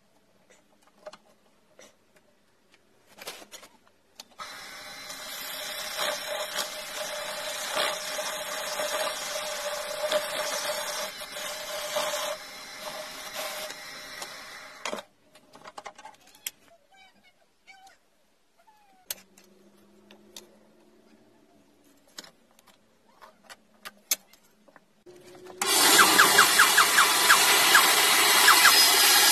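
Small handling clicks, then a lathe runs steadily for about ten seconds and cuts off. After a quiet stretch of clicks, a band saw starts up much louder near the end and cuts into a block of stabilized wood.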